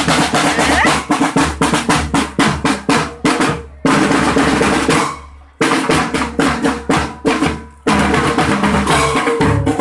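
Drums played fast and loud, snare strokes and rolls over bass drum, with a longer ringing hit about four seconds in that fades before the drumming picks up again.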